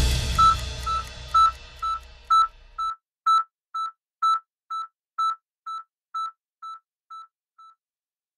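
Electronic outro sound effect: a steady run of short, high beeps all at the same pitch, about two a second, alternating slightly louder and softer and fading away near the end. Under the first few beeps the tail of the closing music dies out about three seconds in.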